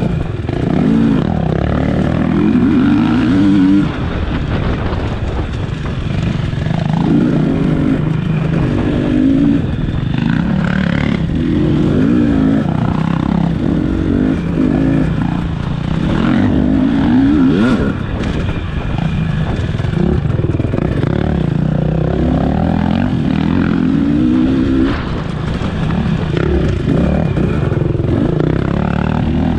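Enduro motorcycle engine revving up and down over and over, its pitch rising and falling every second or two as the throttle is worked.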